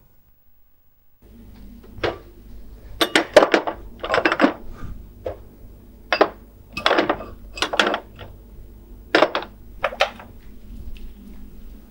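Glasses, bottles and other bar items being handled behind a bar: a series of short clinks and knocks at irregular intervals over a low steady hum that starts about a second in.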